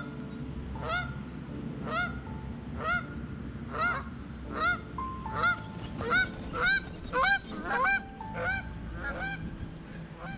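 Canada geese honking over and over. The honks come about one a second at first, then crowd to about two a second and grow loudest a little past the middle. They thin out near the end as geese take flight.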